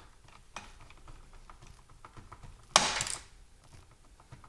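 Small clicks and taps of a laptop SATA drive caddy and its tiny screws being handled, with one louder knock and scrape about three seconds in as the drive assembly is pushed down into the laptop chassis.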